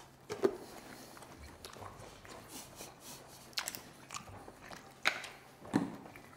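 Steak being chewed, picked up close by clip-on microphones, with a few scattered clicks and knocks of cutlery and crockery.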